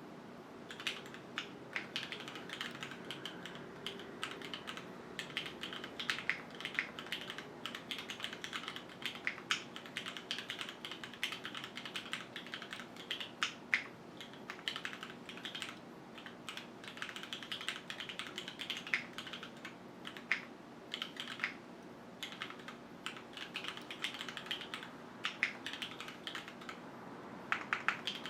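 Continuous typing on a QwertyKeys Neo 65 mechanical keyboard fitted with Cherry HyperGlide Black linear switches on an aluminium plate, gasket-mounted with no foam inside. It makes a fast, irregular stream of key clacks, with a few louder strokes standing out.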